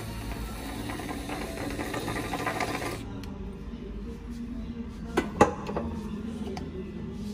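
Whipped cream dispenser hissing and sputtering as it pipes cream onto a frappe, stopping abruptly about three seconds in. A little after five seconds come two sharp knocks close together.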